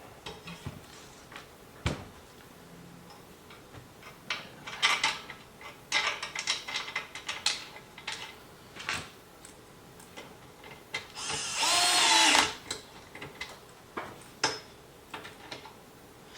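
Scattered clicks and knocks of furniture parts and hardware being handled, then about eleven seconds in a cordless drill fitted with an Allen hex bit runs for just over a second, driving in an assembly bolt.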